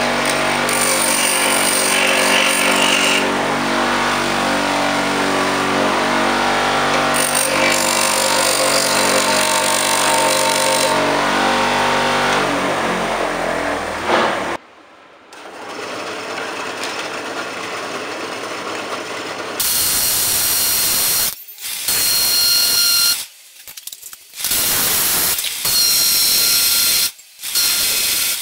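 Parkside bench grinder running steadily while the brass ferrule of a wooden handle is ground against its wheel, until it drops away about halfway through. In the second half, a drill press spins a small brass piece against a hand file in five loud stop-start bursts.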